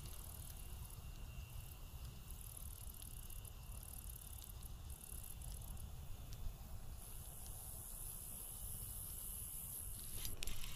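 Spinning fishing reel being cranked steadily to retrieve the line, a faint mechanical whir under a low steady rumble.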